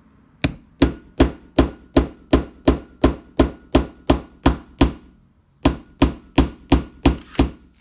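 A hammer tapping a pin punch against a stuck pop rivet in a Mini Sportspack wheel arch, to knock the rivet out. It gives sharp, even knocks at nearly three a second: about thirteen, a short pause, then six more.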